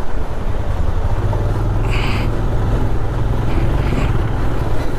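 Motorcycle engine running steadily under way, with wind and road noise. Brief high-pitched blips come about two seconds in and again near four seconds.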